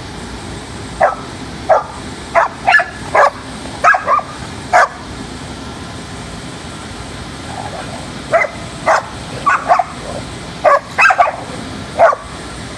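Dogs barking and yipping in short, sharp calls: a run of about nine in the first five seconds, a pause, then another run of about eight. A steady background hum runs underneath.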